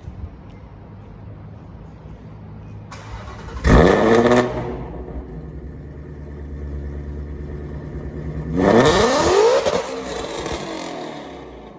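Shelby GT350R's V8 running, then revved hard twice, pitch climbing sharply each time: a short burst about four seconds in and a longer one near nine seconds. Each time it falls back to a lower, steady run.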